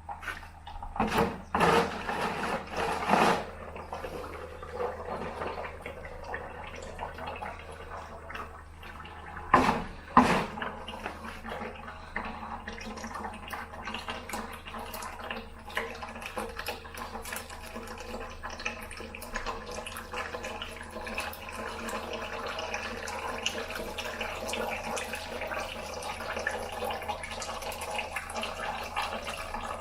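Liquid running and dripping into a container, a steady trickling stream, with a few loud knocks near the start and a couple more about ten seconds in.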